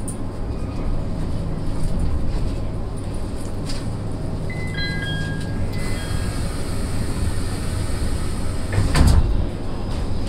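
Inside an SAT721-series electric train standing at a station, a few short electronic tones sound near the middle. About nine seconds in, the sliding passenger doors shut with a single loud thump. The car's equipment hums steadily throughout.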